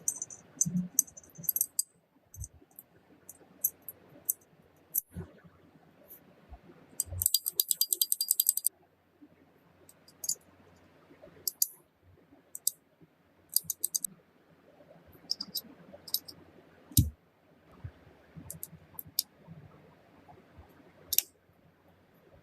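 Sharp metallic clicks and snaps of a pistol's small metal parts being handled, scattered through the stretch. About seven seconds in comes a quick rattling run of clicks lasting about a second and a half, and a dull knock follows later.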